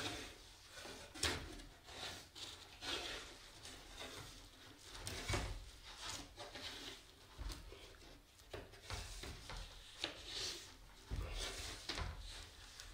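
Cord and wooden blocks being handled on a guitar soundboard during a Spanish-method glue-up: the string rubs and draws across the wood while the blocks knock lightly, several times and at irregular intervals.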